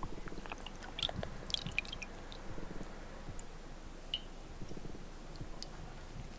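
Faint, scattered wet squelches, clicks and drips as a soaked roe deer head is lifted out of a pot of water.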